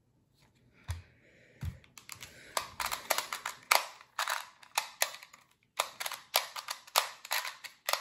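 A Qiyi Clock puzzle being worked quickly in the hands. There are two soft thumps, then from about two seconds in a dense, irregular run of sharp clicks from its dials turning and pins being pushed.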